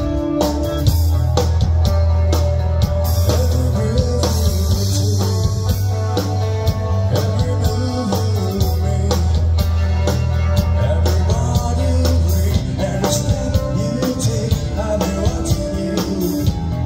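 Rock music with guitar, bass and drums, playing steadily.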